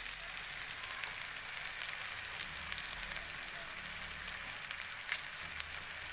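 Pork and potato chunks sizzling in a wok, a steady frying hiss with a few small pops or ticks.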